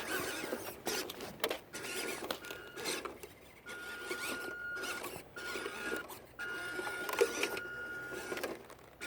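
Small electric RC truck (WPL B36) running over a dirt trail: its motor and gearbox give a thin high whine that cuts in and out in stretches of about a second as the throttle is worked, over a rough scrabbling of tyres and body on the ground.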